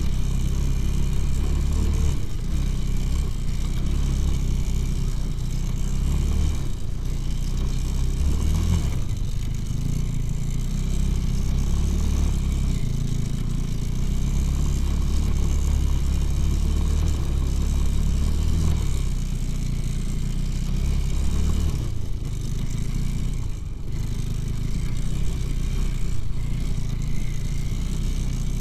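Two-wheel-drive motorcycle's engine running steadily under load as it pushes through snow, its note dipping briefly a few times.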